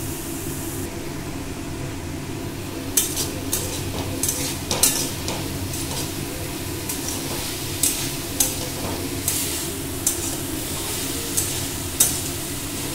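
Chicken and vegetables sizzling as they are stir-fried in a metal wok, the metal spatula scraping and knocking against the pan. The sizzle runs steadily; from about three seconds in it is broken by a dozen or so sharp scrapes and clacks of the spatula.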